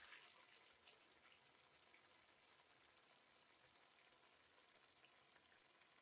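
Faint, steady sizzling and crackling of chicken thighs simmering in tomato sauce in a frying pan.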